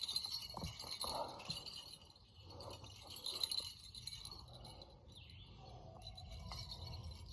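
Creek water flowing over stones, with a few soft knocks in the first second or so.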